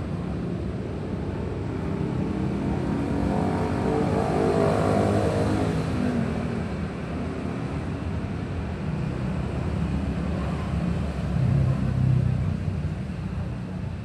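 Town street traffic: motor vehicles driving past with a steady low rumble. About four seconds in, one engine passes close, its pitch rising then falling, and another vehicle rumbles by, louder, near the end.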